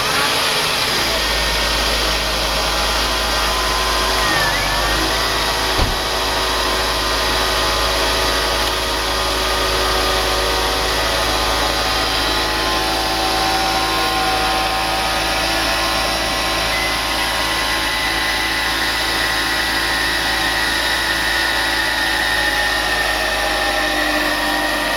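1995 Mercedes-Benz C280's straight-six engine idling steadily on a newly fitted serpentine belt, running without the noise that prompted the belt replacement. The idle dips briefly about four seconds in, and there is a short knock near six seconds.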